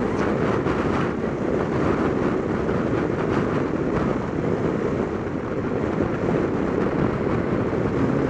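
Piaggio MP3 500 three-wheeled scooter running at steady cruising speed, its engine and tyre noise mixed with wind rushing over the microphone.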